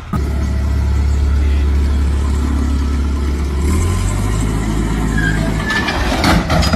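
A machine's engine running steadily with a low hum, which shifts in pitch about four seconds in, then metallic clattering near the end.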